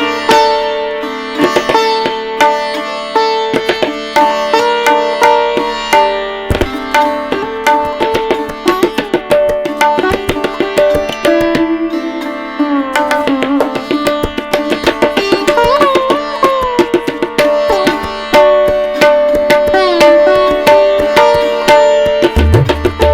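Background music in Indian classical style: a sitar plucking a melody over a drone, with notes bent in pitch in the middle, and tabla strokes coming in near the end.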